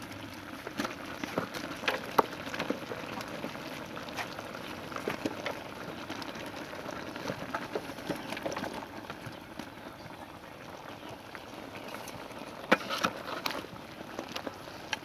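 Pork simmering in a steel cooking pot, a steady bubbling, with scattered soft knocks as raw jackfruit chunks are tipped in from a plastic basin; a louder knock about 13 seconds in.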